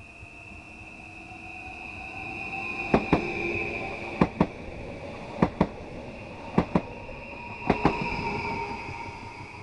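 NS Sprinter electric multiple-unit train passing close along the platform, with a steady high whine. Its wheels give five paired clicks about a second apart, each pair a set of axles crossing a rail joint. The sound swells as the train comes by and fades near the end.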